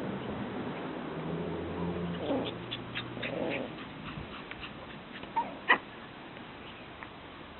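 Six-week-old Havanese puppies play-fighting, growling and giving high-pitched yelps and whines, with one short sharp yip about two-thirds of the way in.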